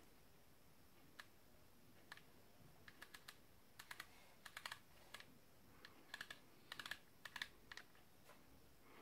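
Adjustment turret of a Schmidt & Bender 5-25x56 PMII riflescope being turned: a couple of dozen faint, sharp detent clicks, some single and some in quick runs of two to four.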